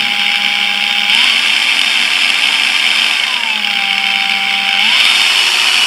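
A 125mm cordless brushless angle grinder running with no load while its variable-speed dial is turned. The motor whine steps up in pitch about a second in, drops back at about three and a half seconds, and rises again near five seconds.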